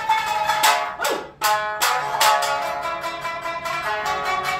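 Three Tsugaru shamisen playing in unison, the plectrum striking strings and skin in hard, percussive notes. About a second in, a note slides down in pitch and the playing breaks off for a moment before loud strokes resume.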